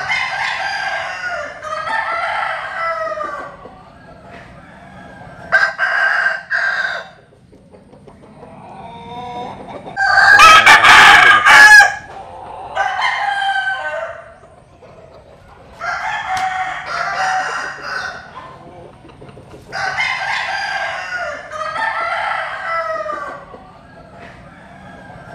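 Rooster crowing again and again: about six crows of two to three seconds each, the loudest and sharpest about ten seconds in.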